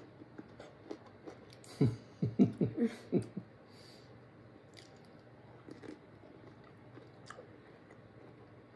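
A person biting and chewing a crunchy sour dill pickle. A quick run of loud crunches comes about two seconds in, followed by quieter chewing.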